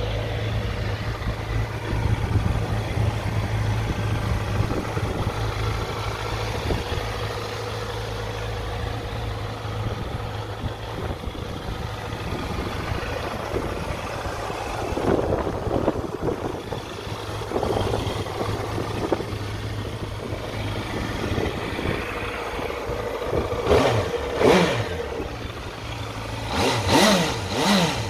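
Honda CB650F's inline-four engine idling steadily, blipped a few times in the second half with short rises and falls in pitch, the sharpest near the end.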